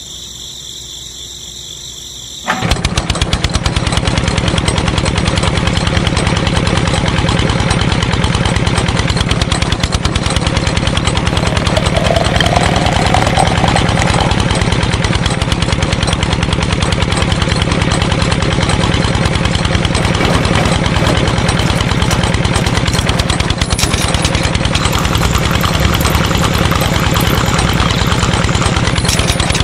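Small motor of a miniature model concrete mixer starting about two and a half seconds in and running steadily with a rapid mechanical clatter as it turns the drum.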